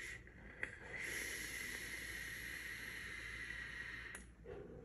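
Air drawn through a Noct Boro box mod's 3 mm airflow pin during a hit: a steady hissing draw of about three seconds, preceded by a short click. The airflow is normal and smooth.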